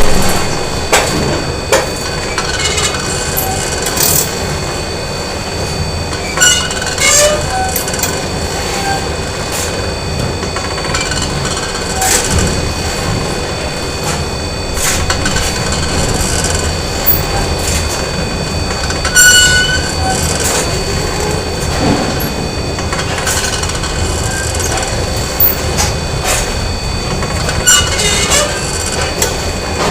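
Factory machinery din: a loud continuous mechanical rumble with steady whining tones, broken by irregular metallic clanks and brief high squeals.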